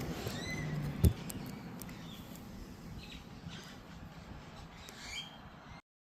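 Birds chirping now and then over a steady background hiss, with a single sharp knock about a second in. The sound drops out briefly near the end.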